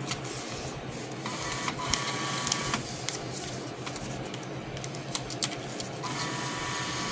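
Vending machine's MEI bill validator motor whirring as it draws in a banknote, in two short spells: about a second in and again near the end, with small clicks. A steady low hum runs underneath.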